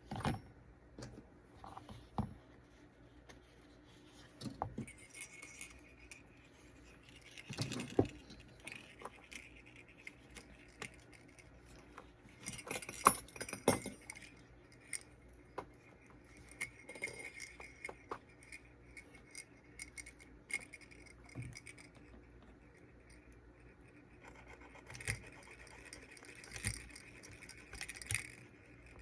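Sleigh bells on a leather belt jingling and clinking on and off as the belt is handled, in short bursts with pauses between.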